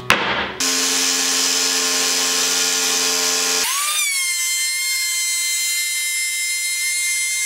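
A sharp knock, then a power tool running steadily for about three seconds. After an abrupt change, a handheld electric router runs with a steady high whine while trimming the curved edge of a plywood panel, its pitch rising briefly before settling.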